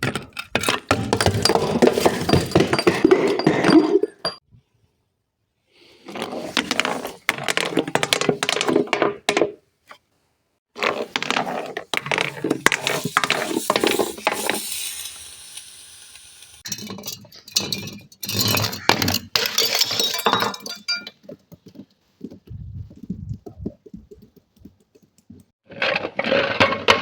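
Glass being crushed and broken, crunching and cracking with clinks of shards, in several bursts a few seconds long with short pauses between.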